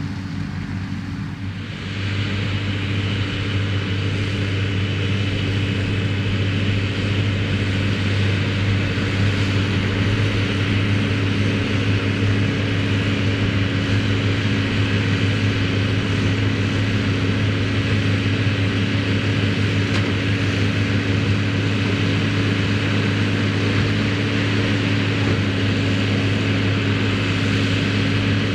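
New Holland TM155 tractor engine running steadily under load as it pulls a Claas Variant 385 round baler, a constant drone that gets louder about two seconds in.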